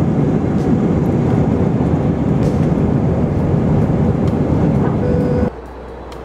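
Jet airliner's engines and wheels during the takeoff roll, heard from inside the cabin as a loud, steady rumble. The rumble cuts off abruptly about five and a half seconds in, leaving a quieter steady cabin hum.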